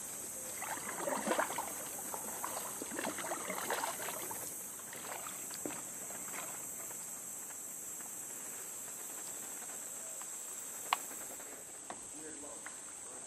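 Kayak paddle strokes dipping and splashing in calm water for the first few seconds, over a steady high-pitched insect chorus. A single sharp click comes about eleven seconds in.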